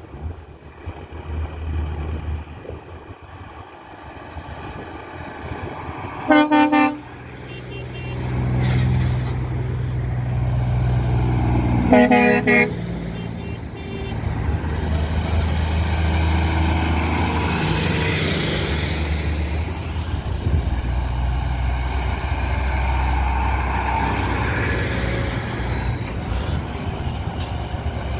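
Diesel semi-trailer trucks driving past one after another, engines running. Two short truck horn blasts sound, about six and twelve seconds in.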